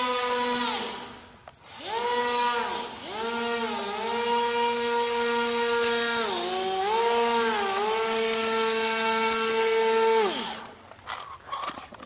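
RC airboat's electric motor and air propeller whining, the pitch dropping and rising again several times as the throttle is eased off and reapplied, then spinning down and stopping near the end. The owner suspects the battery is dying. A few faint taps follow.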